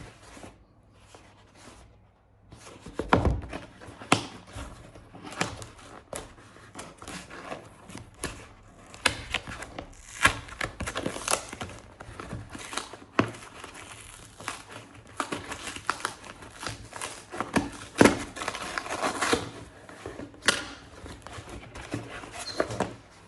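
Parcel packaging being opened by hand: irregular crinkling, rustling and tearing with sharp clicks, picking up after a short lull about two seconds in.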